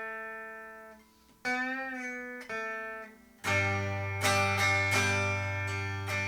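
Squier 40th Anniversary Telecaster electric guitar on both pickups (middle selector position), played straight into a Sound City Master Lead 50 amp with no reverb. A few single notes ring out and fade, one bent and wavering, then about three and a half seconds in full strummed chords ring on.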